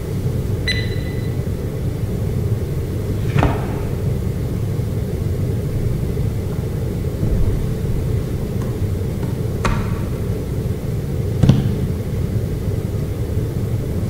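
Library ambience: a steady low rumble, with a few scattered knocks and clicks and a brief beep about a second in.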